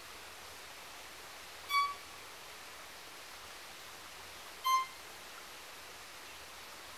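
Violin playing two short, single high notes about three seconds apart, imitating the call of a pygmy wren-babbler.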